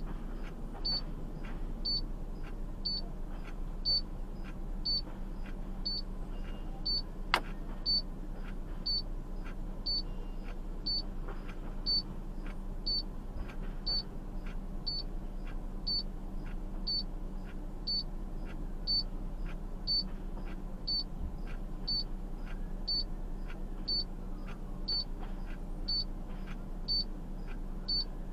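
A short, high electronic beep repeating steadily about once a second inside a parked car, over a steady low hum. A single sharp click about seven seconds in.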